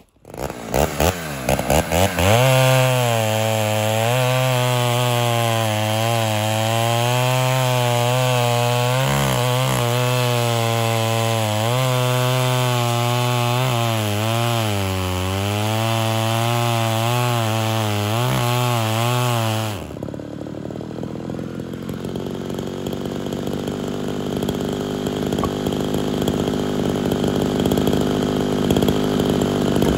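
Ported Homelite Super XL Auto two-stroke chainsaw firing up and revving, then cutting down through a standing firewood round, its engine speed rising and falling under load. About two-thirds of the way in it drops back to idle and keeps idling.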